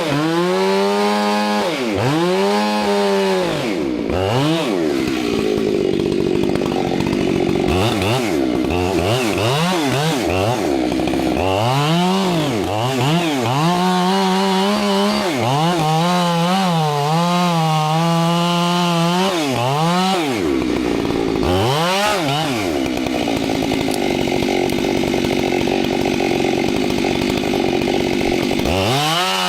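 Chainsaw working a cut in a tree: the engine's pitch repeatedly drops and rises as the throttle is eased and opened, with two longer stretches of steady, rougher running in the cut, a few seconds in and through most of the last third.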